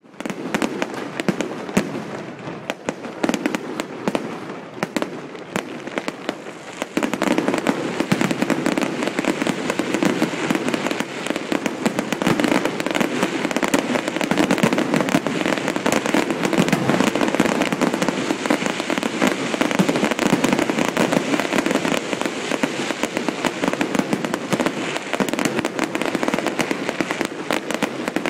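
Fireworks display: a dense run of shell bursts, bangs and crackle, growing louder and more continuous about seven seconds in.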